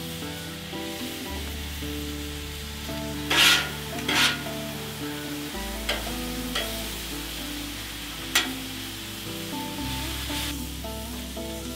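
Marinated meat sizzling on a 36-inch Blackstone flat-top griddle while a metal spatula scrapes and taps across the steel plate: two louder scrapes about three and a half and four seconds in, and a few sharper taps later. Background music with a slow bass line plays underneath.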